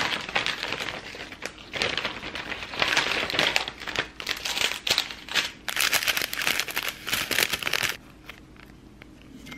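Plastic food packaging crinkling and rustling as packets and a plastic tray of fried tofu pouches are handled and opened by hand. The crinkling stops about eight seconds in, leaving only faint sounds.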